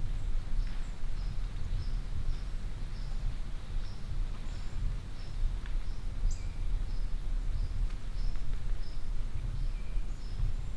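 Outdoor woodland ambience: a steady low rumble on the microphone, with a short high chirp repeating about twice a second.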